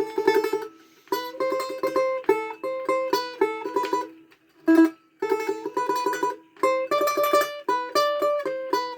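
Domra played with tremolo: rapid down-up plectrum strokes sustain a simple melody of held notes that step from one pitch to the next, with a short break about halfway through.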